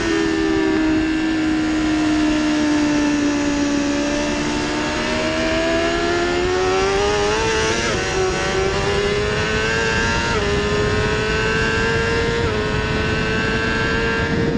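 BMW S1000RR inline-four engine at high revs on track. Its note sags slightly, then climbs steadily as the bike accelerates up to about 230 km/h, with brief breaks in the tone about 8, 10 and 12 seconds in. Heavy wind rush runs under it.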